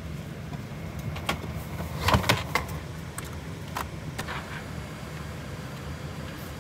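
Airliner cabin at the gate during boarding: a steady low ventilation hum with scattered sharp clacks and knocks from passengers stowing bags, loudest in a cluster about two seconds in.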